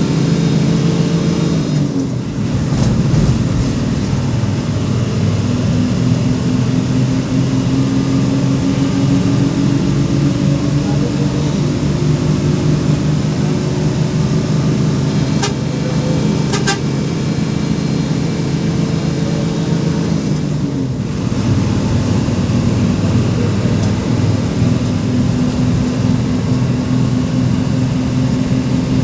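A bus's 1J engine running under load, its drone climbing slowly in pitch as it pulls. The pitch drops at a gear change about two seconds in and again about 21 seconds in. There are a few short clicks around the middle.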